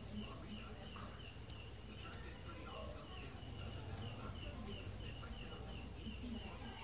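Faint chirping at one pitch, repeated about three times a second, with scattered sharp high clicks, the loudest about one and a half seconds in.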